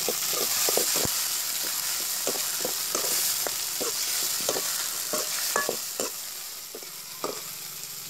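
Chopped tomatoes, onions and green chillies frying in oil in a metal pot, sizzling steadily while a metal ladle stirs them, scraping and knocking against the pot many times. The sizzle eases off somewhat over the last couple of seconds.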